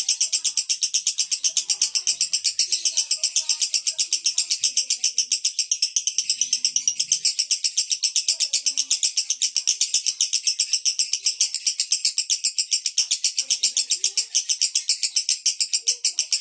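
Male lovebird singing the long unbroken 'konslet' chatter: a shrill, rapid, even rattle of about six pulses a second, held without a break.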